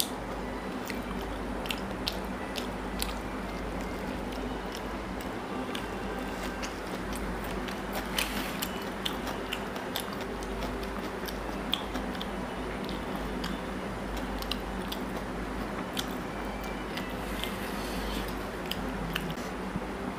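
Close-miked mouth sounds of a person eating curry and rice by hand: chewing with frequent short, wet clicks and lip smacks.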